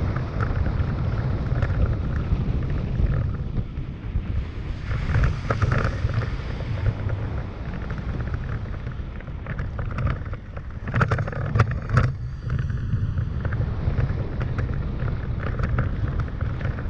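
Toyota Tacoma driving along a dirt trail, heard from a camera on its hood: a steady low rumble of engine, tyres and wind on the microphone, with scattered knocks and rattles from bumps in the track. A cluster of sharp knocks comes about two-thirds of the way through.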